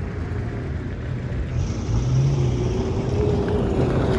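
A vehicle engine running over a steady rushing noise; its pitch rises a little about two seconds in and then holds.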